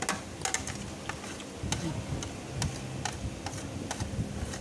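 Wooden chopsticks clicking and scraping against a stainless steel tray while picking up noodles: a scattered run of sharp, uneven taps.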